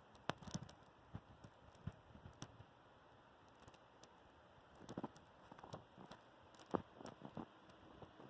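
Near silence: a faint hiss with scattered soft clicks and crackles.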